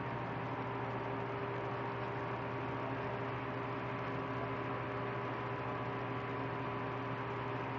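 Steady, unchanging electrical hum with a few fixed tones over a background hiss.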